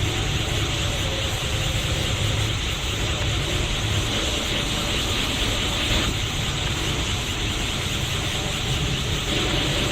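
Super Saiyan God power-up aura sound effect from the anime: a continuous rushing hiss over a low rumble, holding steady without change.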